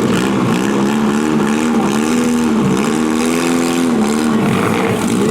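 Engines of semi-stock compact demolition derby cars revving, the pitch rising and falling several times over a constant din.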